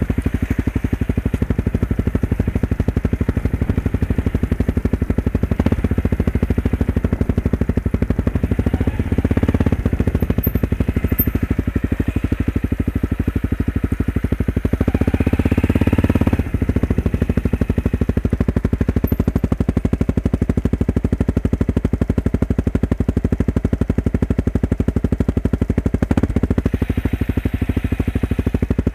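Dirt bike engine running under way, a rapid, steady pulsing close to the helmet-mounted microphone; it grows louder for a second or so about halfway through.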